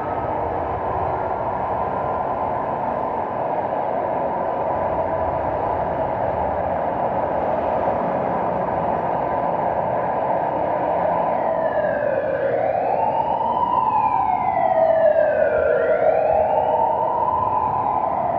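Steady city traffic noise, with an emergency vehicle siren joining after about two-thirds of the way in. The siren wails, rising and falling slowly, and grows louder.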